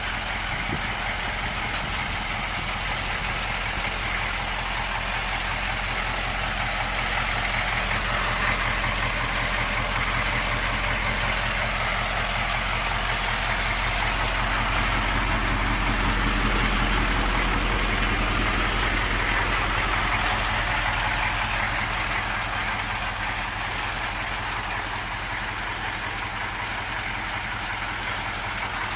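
6.2-litre V8 diesel engine of a Chevrolet K5 Blazer idling steadily, with a fast, even ticking clatter.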